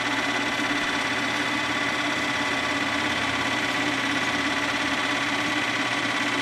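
Film projector running steadily: a continuous mechanical whirr with a fast, even rattle and a steady high tone.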